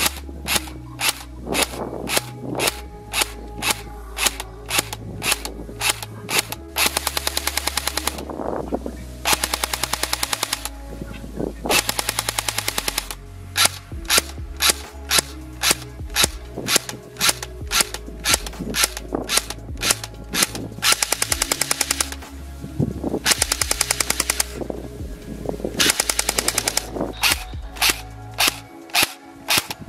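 Jing Gong M4 CQBR electric airsoft rifle (AEG) firing. Single shots come at about two a second, broken by six full-auto bursts of about a second each: three close together about a quarter of the way in and three more about two-thirds through. Background music plays underneath.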